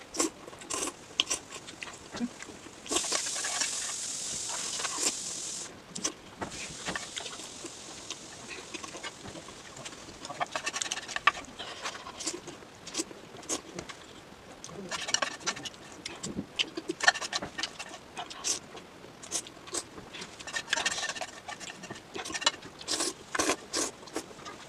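Noodles being eaten close to the microphone: wet chewing and mouth smacks in irregular clusters, with a long slurp starting about three seconds in and lasting nearly three seconds.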